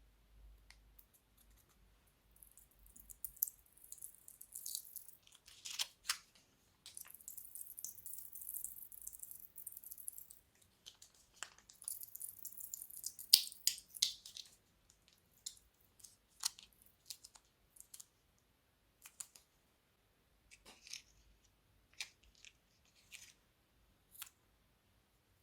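Thin plastic piping bags crinkling and crackling as they are handled, in two dense stretches during the first half, then in scattered crisp crackles and clicks.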